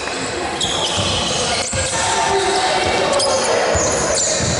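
A basketball bouncing a few times on the wooden floor of a sports hall, echoing in the large hall.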